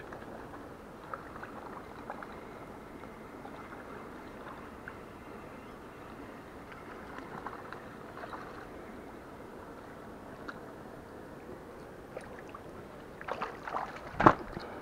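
Low, steady lapping and faint splashing of lake water at the shoreline while a hooked trout is brought in close among the rocks. Near the end come a few knocks and one sharp thump as the camera is handled and carried over the rocks.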